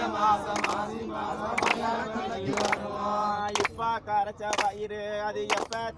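Several voices singing a chant-like devotional song together, with a sharp beat about once a second keeping time.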